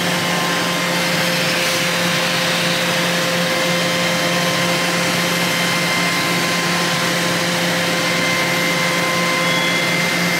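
Laser hair-removal machine running with its cooling on: a steady rushing hiss like a blower, over an even hum.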